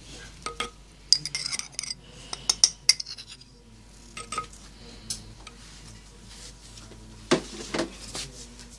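Metal teaspoon clinking and scraping against a small bowl while paprika is scooped and sprinkled: a quick run of sharp clinks in the first few seconds, a few lone taps, then a duller knock and more clinks near the end.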